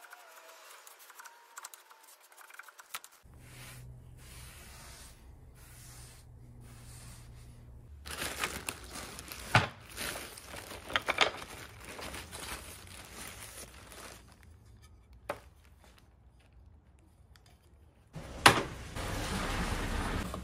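A thin black plastic bag rustled and crinkled by hand, with several sharp crackles. Near the end a loud click is followed by a steady noise.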